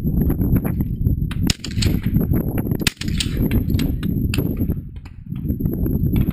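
Two shotgun shots about a second and a half apart, over constant wind buffeting the microphone.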